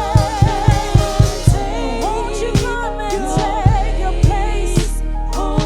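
Gospel worship song: a solo voice sings long, wavering held notes over band accompaniment. A quick drum beat in the first second and a half thins to occasional hits.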